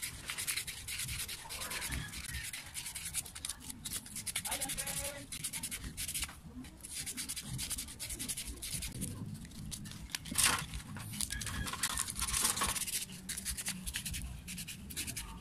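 Sandpaper rubbed quickly back and forth over the commutator of an angle grinder armature, cleaning the burnt, sparking commutator. The strokes are rapid and scratchy, with one sharper, louder scrape about two-thirds of the way through.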